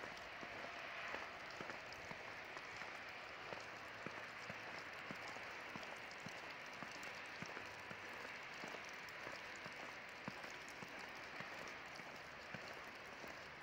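Faint footsteps crunching through fresh snow, many small irregular crackles over a steady hiss.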